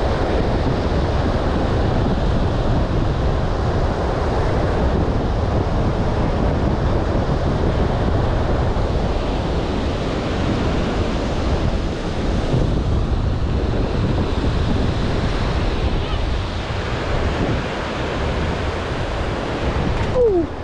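Ocean surf washing and breaking, with wind buffeting the microphone as a steady low rumble. Just before the end a brief falling squeal cuts in.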